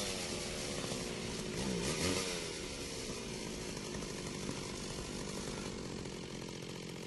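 Chainsaw engine revving about two seconds in, pitch rising and falling, then running steadily and slowly getting quieter.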